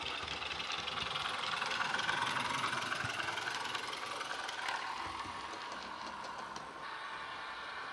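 Bachmann Class 101 DMU model's DCC sound decoder, loaded with the Legomanbiffo 'Llangollen' sound file, playing the diesel engine running sound through a small bass-enhanced speaker as the model passes and draws away. It is loudest about two seconds in and eases off after.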